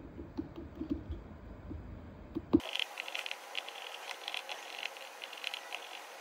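Light irregular clicks and small scrapes of fingers picking loosened screws out of a phone's mid-frame and handling the phone's hard plastic and metal parts. About two and a half seconds in, the sound turns abruptly thinner and brighter.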